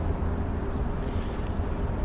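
Wind rumbling on the microphone over a steady rush of running creek water.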